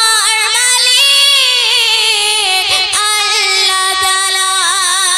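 A high voice singing a Bangla gojol, an Islamic devotional song, drawing out long wavering notes without words.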